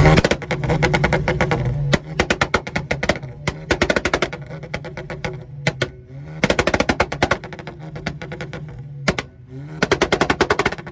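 Ford Mustang engine held on a two-step launch-control rev limiter, firing rapid-fire pops and bangs. The pops come in repeated bursts of about a second each, with the engine idling steadily between them.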